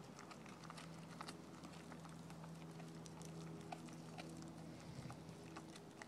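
German shepherd gnawing and chewing a chunk of raw green tripe: faint, irregular wet clicks and smacks of teeth and jaws, over a steady low hum.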